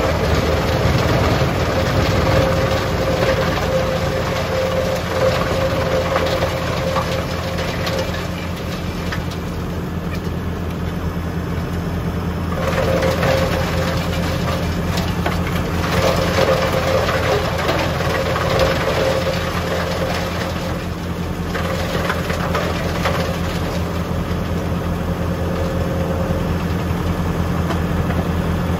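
Tractor engine running steadily while driving a Junkkari HJ500 wood chipper spinning empty, with a steady whine over the engine hum that fades out and returns a few times.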